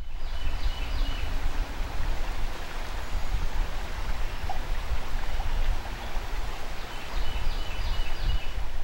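Steady rush of flowing river water with wind buffeting the microphone, plus a few faint high peeps near the start and again near the end.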